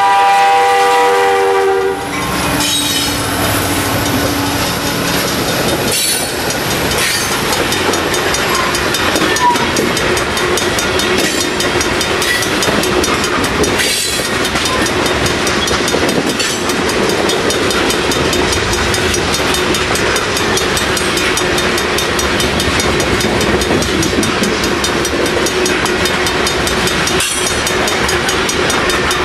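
The horn on the lead CN EMD SD70I locomotive sounds a loud chord as it passes close by and cuts off about two seconds in. Then come the rumble of the two EMD diesel locomotives working to bring the train up to speed, and a long string of loaded freight tank cars rolling past with steady clickety-clack and a few louder wheel knocks.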